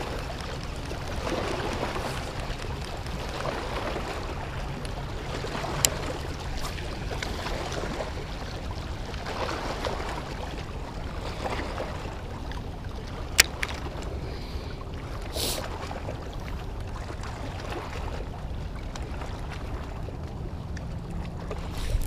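Small waves washing against the bay shore, swelling softly every couple of seconds over a steady hiss of wind and water. Two sharp clicks stand out, about six and thirteen seconds in.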